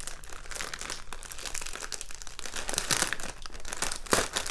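Clear plastic packaging bag crinkling as it is handled and opened, a dense run of small crackles with a louder flurry about three seconds in and a sharper, louder crackle just after four seconds.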